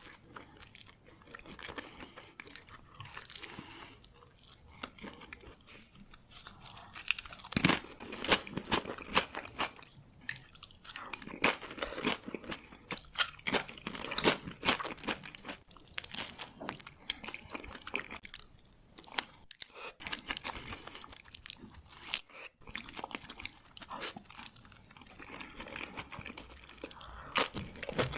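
Close-miked ASMR eating: quiet chewing for the first few seconds, then repeated crisp crunching of tortilla chips from cheese-loaded nachos. A sharp snap comes near the end.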